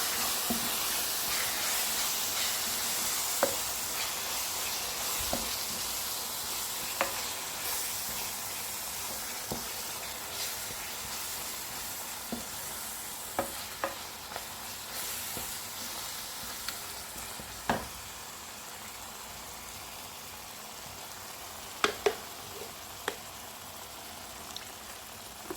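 Blended Cameroonian fried pepper sizzling in a pot of hot oil while it is stirred, with occasional sharp clicks. The sizzle slowly fades.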